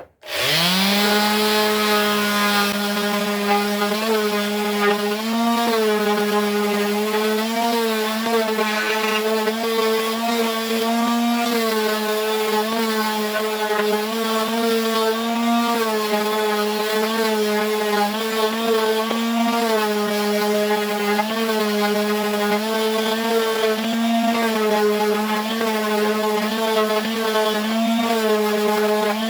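Electric woodworking power tool starting up: the motor spins up about half a second in, then runs with a steady hum, its pitch wavering slightly every second or two as the wood is worked.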